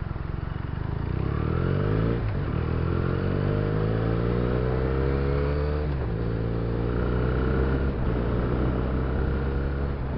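Benelli TNT300's parallel-twin engine pulling away and accelerating. The revs climb, drop with an upshift about two seconds in, climb again, drop with another upshift about six seconds in, then hold nearly steady.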